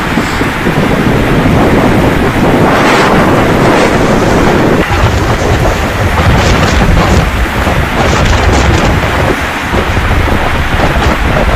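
Strong storm wind buffeting the microphone: a loud, continuous low rumble with rushing rain noise over it.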